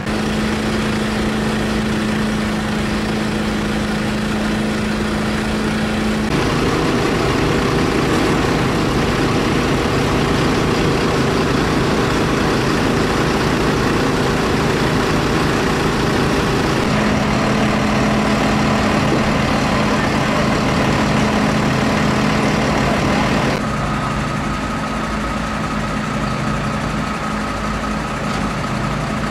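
Heavy diesel engines of fire engines idling, a steady drone with a constant low hum. The tone shifts abruptly three times.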